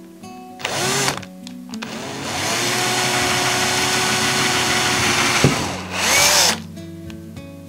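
Cordless drill boring a small hole through the centre of a wooden dowel with a small bit: a short burst about half a second in, a steady run of about three seconds from two seconds in that ends with a click, then another short burst near six seconds.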